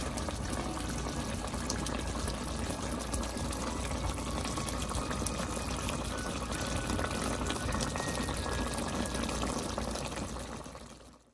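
Pork estofado in a soy-sauce and pineapple-juice sauce simmering in the pan: the thick sauce bubbles with a steady run of small pops, fading out near the end.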